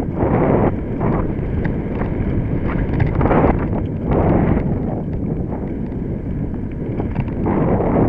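Mountain bike rattling and clattering over rough ground on a downhill run, with tyre rumble and wind buffeting the microphone, rising in irregular loud surges.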